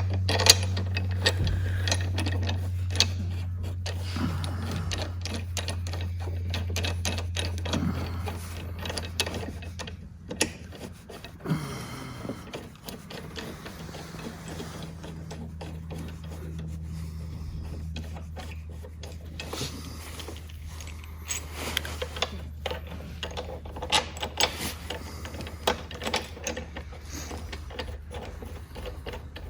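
Scattered clicks and metallic knocks of hand tools and metal parts as handlebar mounts are fitted back onto an electric ATV, over a steady low hum.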